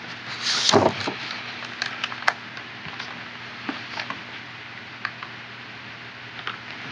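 Cardboard parts box being opened and unpacked: the lid scrapes off about half a second in, then scattered light ticks and crinkles as packing foam and plastic-bagged parts are handled.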